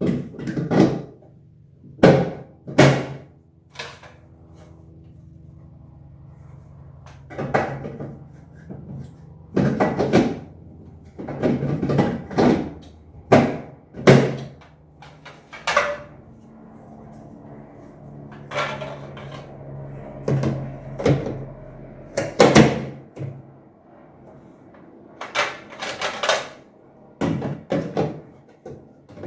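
A series of sharp knocks and clatters, as of household objects being handled and set down, coming in irregular clusters every second or two, over a faint steady low hum.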